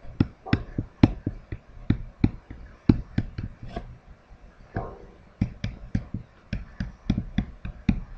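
Pen stylus tapping and scratching on a tablet writing surface during handwriting: a quick, irregular run of short sharp ticks, several a second.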